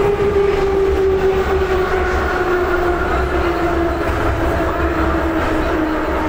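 Metro train running through a tunnel, heard from inside the car: a steady low rumble with a motor whine that slowly falls in pitch.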